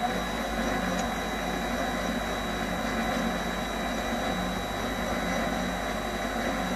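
MX-210V mini lathe running steadily, its chuck spinning as the tool takes a light chamfer cut on a rubber block. It makes an even motor hum with a thin steady high whine.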